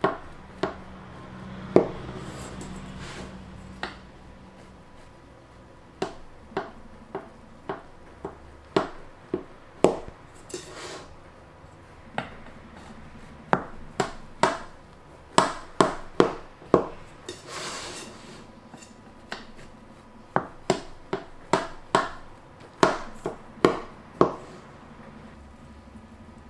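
A knife and serving utensil cutting a baked chicken and cabbage pie in its pan: many sharp, irregular taps and knocks of metal on the dish, with a few short scrapes.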